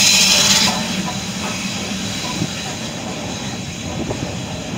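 Steam locomotive letting off a loud, steady hiss of steam that stops abruptly under a second in, leaving a quieter steady background with a few faint knocks.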